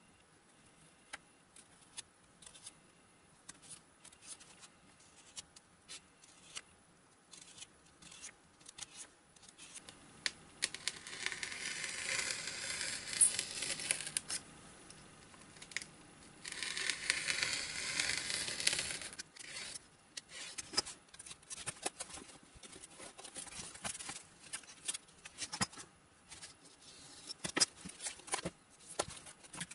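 A utility knife drawn through a foam wing along a steel ruler in two long cuts, one of about four seconds roughly ten seconds in and a shorter one soon after, with light clicks and taps of handling the foam and tools on a cutting mat before, between and after.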